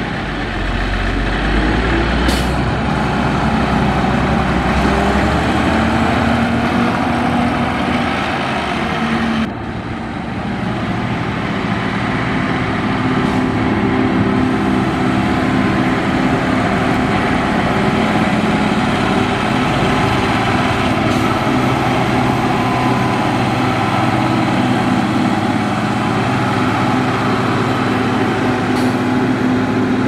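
Motor grader's diesel engine running steadily under load while grading a dirt road, with a brief dip and break in the sound about nine and a half seconds in.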